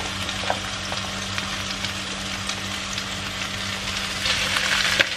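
Vegetables sizzling in hot oil in a stainless steel wok, with light clicks as green-vegetable stems drop in. About four seconds in, a spatula starts stirring and the sizzle grows louder. A steady low hum runs underneath.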